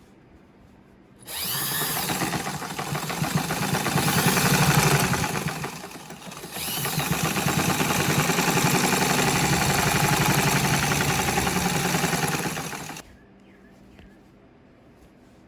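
Sewing machine stitching with a free-motion quilting foot, in two runs: it starts about a second in and speeds up, pauses briefly near the middle, then runs steadily again and stops near the end.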